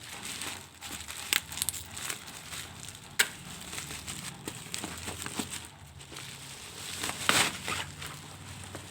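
Packaging being handled while unboxing: plastic crinkling and rustling with irregular clicks, a sharp snap about three seconds in and a longer crinkly burst near the end.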